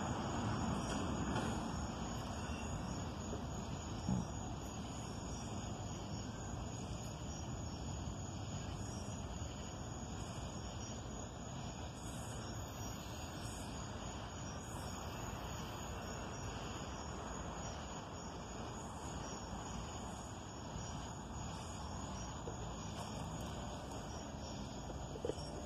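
Crickets chirping in a steady high trill, with the low rumble of the passing freight train easing off over the first few seconds. There is a single small knock about four seconds in.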